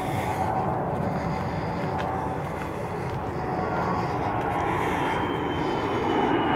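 A distant engine drone that slowly grows louder, with a faint whine that falls gently in pitch from about halfway through.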